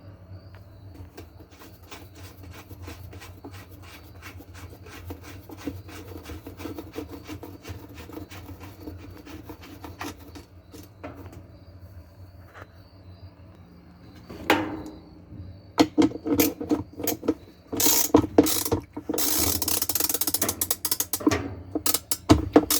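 Ratchet wrench clicking while a 7/16 bolt on a Whirlpool washer's wash plate assembly is worked, with scattered light clicks at first and a much louder stretch of rapid ratcheting and metal clatter in the last third.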